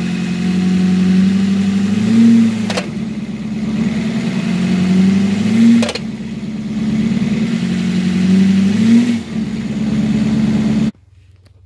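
A 2010 Chevy Duramax's 6.6-litre V8 turbodiesel running at idle, its pitch rising briefly three times as the throttle is blipped, with two sharp clicks. The engine sound cuts off abruptly near the end.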